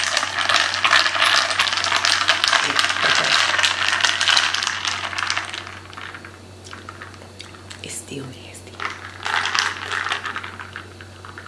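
Plastic straw stirring a creamy coffee drink in a glass jar: a fast, steady clinking and rattling against the glass for about five seconds, then quieter, with a couple of shorter bursts of stirring later on.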